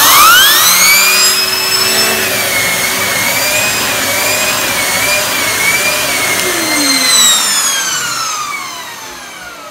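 Numatic cylinder vacuum cleaner switched on, its motor whining up to speed, then running steadily with the pitch wavering slightly while a floor tool is worked over the carpet. About seven seconds in it is switched off, and the whine falls away as the motor winds down.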